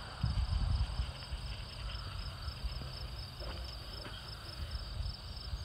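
Steady high-pitched insect chorus from the surrounding grass, with a low rumble that is loudest about a quarter of a second to a second in.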